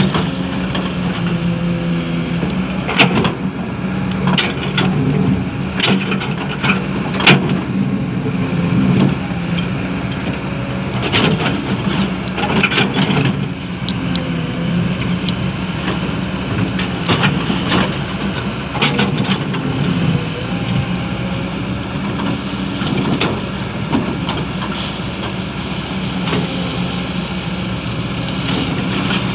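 Excavator's diesel engine running steadily, with sharp metallic knocks and clanks from the machine's work coming irregularly, the loudest a few seconds in.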